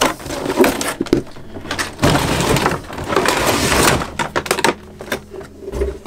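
Cardboard box and clear plastic packaging being handled, rustling and crinkling in two long stretches, then a few light sharp clicks near the end.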